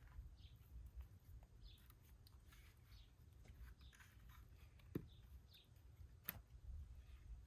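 Mostly near silence while split firewood is handled and stacked: a single dull wooden knock about five seconds in and a sharp click a second or so later as pieces are set in place.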